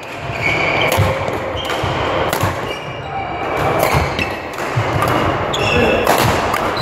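Badminton rally: rackets striking the shuttlecock and court shoes squeaking in short chirps on the sports-hall floor, over the same kind of hitting and squeaking from neighbouring courts.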